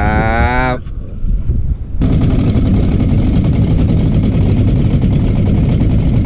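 A fishing boat's engine running steadily with a low, even drone. It starts suddenly about two seconds in.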